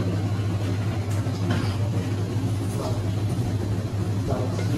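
A steady low mechanical hum with a few faint clicks and knocks over it.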